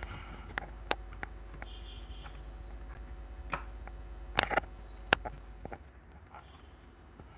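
Scattered sharp clicks and taps of a phone being handled close to its microphone, over a low steady hum that drops away near the end.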